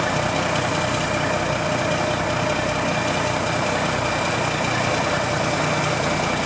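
Steady running of a fire engine's motor and pump at the fireground, with the hiss of a hose spraying water.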